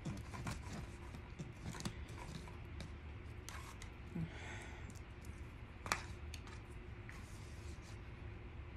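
Eating sounds: a plastic fork clicking and scraping in an aluminium foil tray of shrimp ceviche, with the small clicks of chewing. The clicks are scattered and light, with one sharper click near six seconds in.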